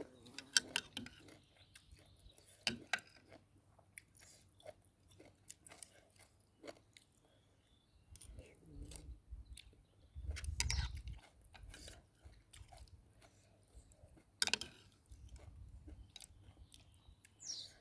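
Person chewing instant noodles close to the microphone: faint chewing with many small mouth clicks and ticks, and a brief low rumble about ten seconds in.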